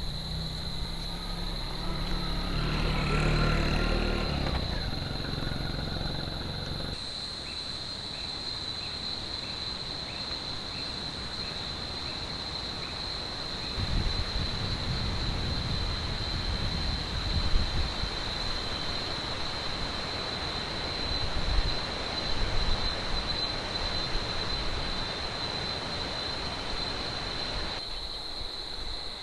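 A steady, high-pitched drone of jungle insects over the continuous rush of river water. A heavier low rumble in the first seven seconds drops away abruptly, and a few brief low swells come later.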